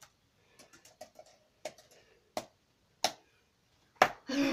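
Scattered light taps and clicks of small objects being handled, roughly one every half second, with a louder knock about four seconds in and a short louder scuffling noise at the end.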